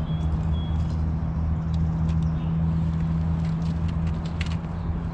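Boat motor running with a steady low hum, with a few faint clicks over it.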